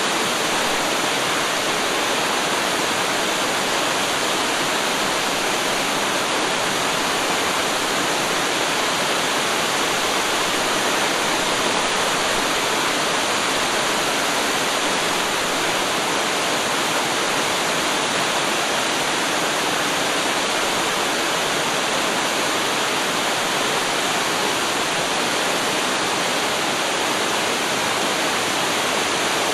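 Waterfall: water pouring steadily in an even, unbroken rush with no changes.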